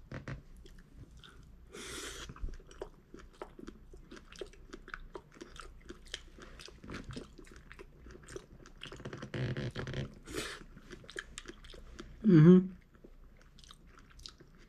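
A person chewing a mouthful of salmon-avocado sushi ball with tempura crumbs inside, with many small wet clicks and crunches of the mouth. Near the end a short hummed 'mm' stands out as the loudest sound.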